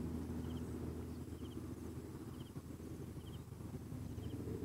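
A steady low rumble, with a short high chirping call repeating about once a second over it.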